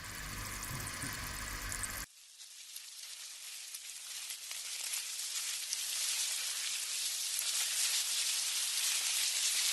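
Steady hiss with fine crackles, growing gradually louder, after an abrupt cut about two seconds in from a different noisy sound.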